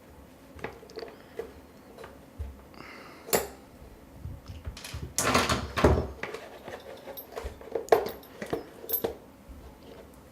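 Plastic parts of an iced tea maker being handled during a teardown: scattered clicks and knocks, a louder scraping rattle about halfway through, and a few sharp clicks near the end.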